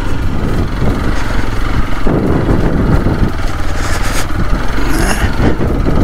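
Hero XPulse 200 motorcycle's single-cylinder engine running under load on a steep, slippery dirt-track climb. The engine gets louder for about a second, roughly two seconds in.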